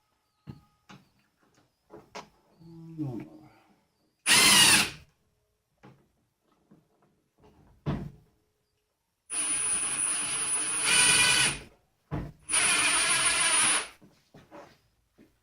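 Power drill-driver running in three short bursts, first briefly and then in two longer runs near the end, with a steady high whine, driving screws into the printer frame. Light clicks and handling knocks come between the runs.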